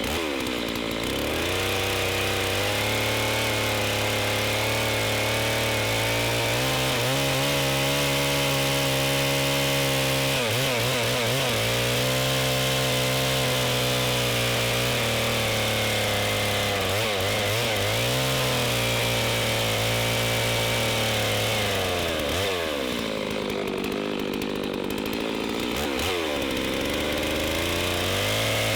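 Holzfforma G660 two-stroke chainsaw running at high revs, its engine note dipping and recovering several times as it works.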